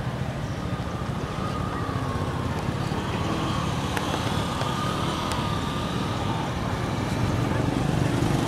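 Steady low rumble of road traffic, with a faint wavering engine whine passing through the middle.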